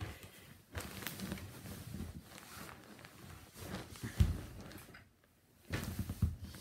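Handling noise close to the microphone: rustling and cloth brushing with scattered bumps, a single thump about four seconds in, then a short run of knocks near the end.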